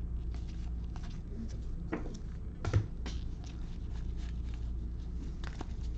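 Paper baseball cards being thumbed off a stack one at a time: soft flicks and slides of card stock, with a couple of sharper flicks about two and three seconds in, over a steady low hum.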